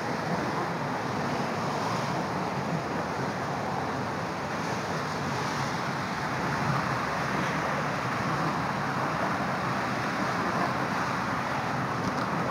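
Steady traffic noise from cars crossing a suspension bridge, mixed with wind buffeting the microphone.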